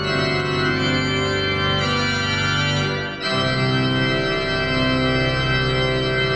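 Organ postlude: an organ playing full sustained chords, moving to a new chord about three seconds in.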